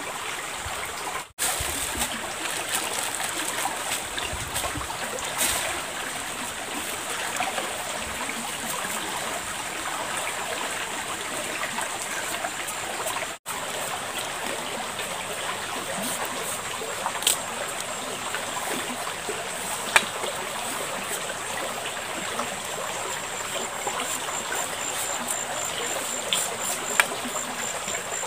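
Shallow river flowing steadily, an even rushing hiss of water. A few sharp clicks stand out from knife work on a green papaya.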